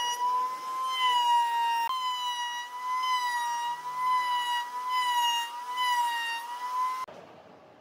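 Table-mounted router spinning a bearing-guided flush-trim bit while it trims the inside of a pine ring: a steady high whine that wavers slightly in pitch as the cut loads it. It stops abruptly a little after seven seconds in.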